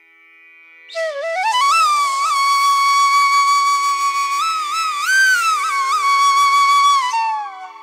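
Background music: a flute melody with bending, sliding notes and a long held note over a steady drone. It comes in about a second in and falls away with a downward glide near the end.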